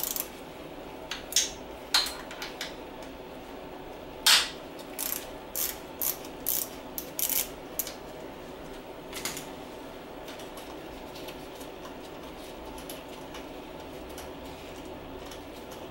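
Hand ratchet clicking in short irregular runs while loosening the 8 mm nut that holds the rear brake fluid reservoir on a motorcycle. The clicking stops a little past halfway, leaving a steady low hum.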